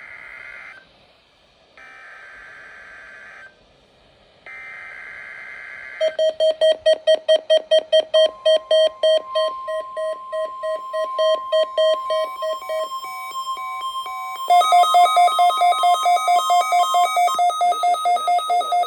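NOAA Weather Radio SAME alert header: three buzzy digital data bursts, each under two seconds, the first already under way. From about six seconds, electronic alert beeping from weather-radio receivers at roughly two to three beeps a second, with the steady 1050 Hz warning alarm tone underneath from about eight seconds to about seventeen. Around fourteen seconds a second, louder beeping pattern at different pitches joins in.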